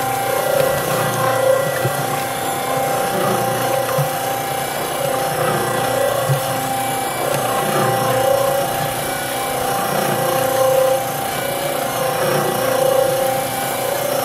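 Electric cement mixer running steadily, its drum turning a thick load of cornstarch oobleck: a continuous motor-and-gear hum with a tone that swells and fades every few seconds.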